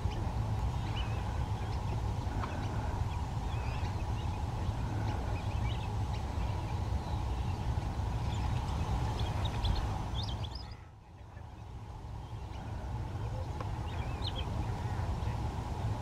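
Outdoor wetland ambience: a steady low rumble with scattered short bird chirps, the whole sound dipping briefly about eleven seconds in.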